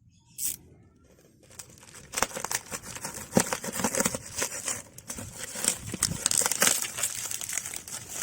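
A parcel's packaging being torn open by hand, with irregular crinkling and tearing rustles that start about two seconds in and keep going.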